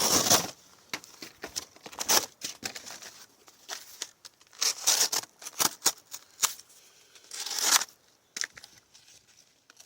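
Cardboard being handled and worked with a knife: irregular scraping, rustling and tearing sounds with a few sharp clicks, loudest in short bursts about 2, 5 and 7.5 seconds in.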